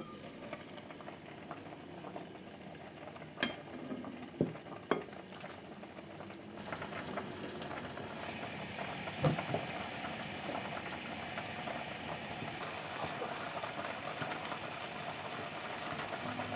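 Braised pork ribs in plum sauce bubbling in a clay casserole pot, with a few light clinks in the first five seconds. The bubbling grows louder about seven seconds in and then holds steady.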